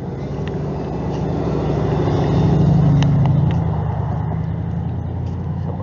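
A motor vehicle driving past, its engine hum and road noise growing louder to a peak a little before the middle and then fading away.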